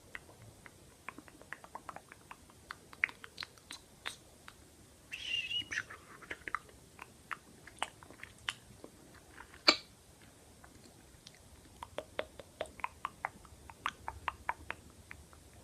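Close-miked ASMR mouth sounds: a scattered run of sharp, wet clicks and smacks, with a brief rustling burst about five seconds in and one louder click near the ten-second mark.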